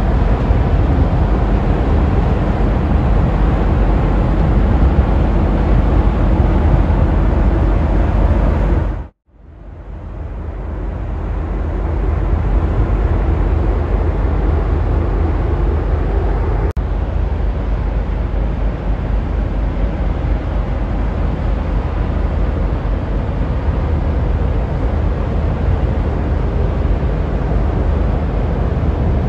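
Steady low rumble of the Trillium-class lake freighter Thunder Bay passing close by in the canal. About nine seconds in it drops out briefly and swells back.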